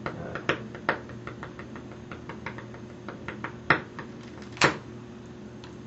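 Small sharp pops, irregular and about a dozen of them, as bubbles of electrolysis gas ignite at a flame over a glass of water. Two louder pops come in the second half. A faint steady hum runs underneath.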